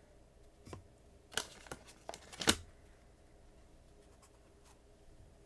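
Trading cards being handled: a few short clicks and rustles as a card is slid off the stack, the loudest snap about two and a half seconds in, then quiet handling.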